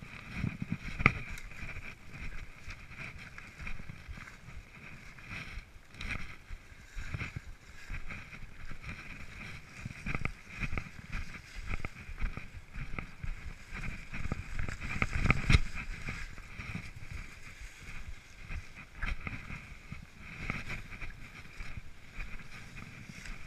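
Mountain bike ridden down a dirt trail, heard from a camera mounted on the rider or bike: repeated rattling knocks from bumps jarring the bike, over steady tyre and wind rush. The hardest jolts come about a second in and around fifteen seconds in.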